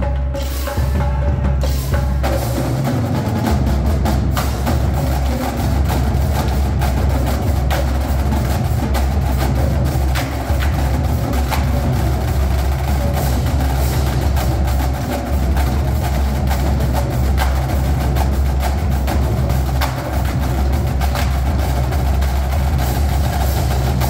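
Marching drumline battery of snare drums, tenor drums, bass drums and cymbals playing a loud, dense, fast-rhythm cadence in a school gymnasium.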